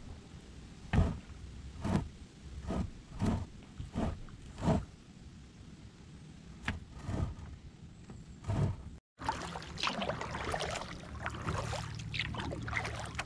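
Kayak paddle strokes splashing in the water, about one every two-thirds of a second. After a cut about nine seconds in, a busier stretch of small splashes and trickling water follows.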